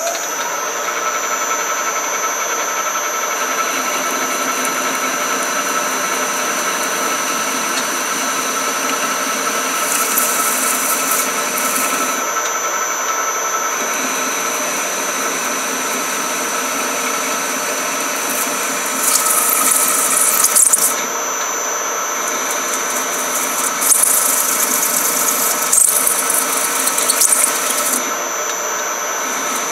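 Metal lathe running with its chuck spinning, a trepanning tool cutting into the face of a turning acetal disc. It gives a steady machine whine, with a few louder bursts of high hiss from the cut, about ten seconds in, around twenty seconds, and again from about twenty-four to twenty-eight seconds.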